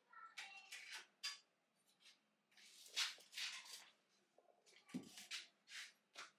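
Faint rustling and light taps as fabric and craft supplies are handled, in a string of short scrapes and clicks, with a longer rustle about three seconds in.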